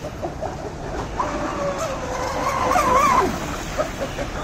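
Traxxas M41 RC catamaran running on 6S power. Its brushless motor whines over a hiss of water, and the pitch rises and falls as the throttle changes, highest about three seconds in.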